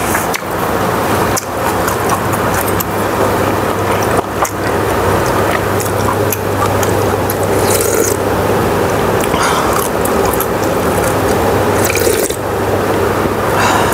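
Webfoot octopus and pork belly stir-fry sizzling and bubbling in a pan, a steady crackle with a few sharp clicks and scrapes.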